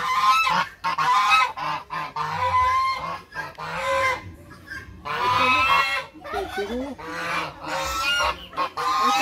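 Domestic geese honking repeatedly, one loud call after another with a short lull about halfway through.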